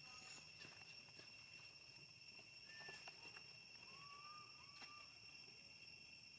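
Faint outdoor ambience: a steady, high-pitched drone of insects, with a few short, faint chirps from about three to five seconds in.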